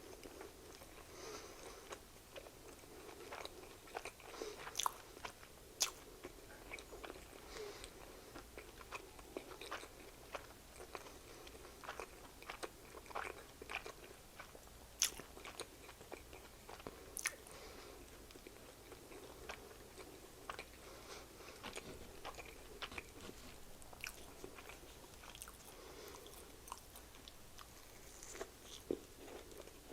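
A person chewing and biting into a Popeyes blackened chicken sandwich, close to the microphone, with many scattered sharp wet mouth clicks over soft chewing.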